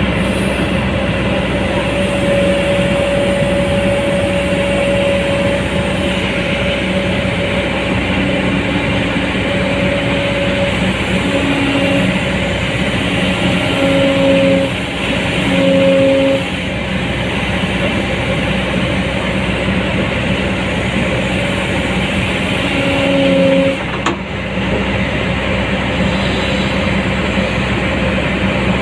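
Komatsu PC200-8 excavator's diesel engine running steadily, with higher-pitched tones coming and going as the hydraulics are worked, and one sharp knock near the end.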